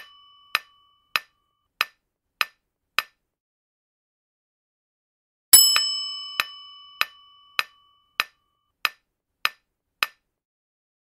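Quiz countdown sound effects: short, sharp clock-like ticks about every 0.6 seconds, six in a row, then a pause of about two and a half seconds. About halfway through, a bright bell ding rings and fades as a new question comes up, followed by seven more ticks of the countdown.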